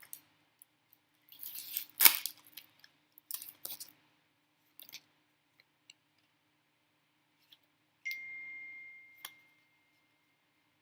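Foil Pokémon booster pack being torn open and crinkled in a few short bursts, the sharpest rip about two seconds in. Near the end a short high ringing tone starts suddenly and fades over about a second.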